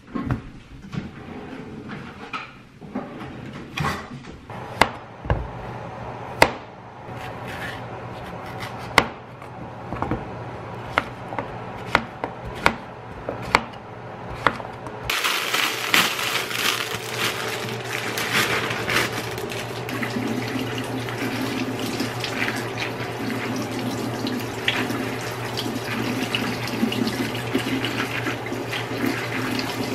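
A kitchen knife chopping zucchini on a plastic cutting board, a sharp knock with each cut at an uneven pace. About halfway through, a kitchen tap starts running and keeps running, with water splashing onto bean sprouts in a plastic colander as they are rinsed by hand.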